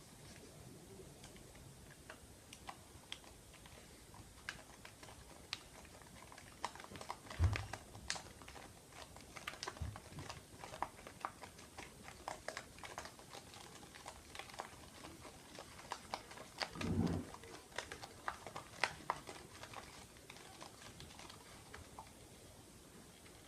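Close-miked ASMR clicks and light taps, irregular and quiet, with a soft low thump about seven seconds in and another about seventeen seconds in.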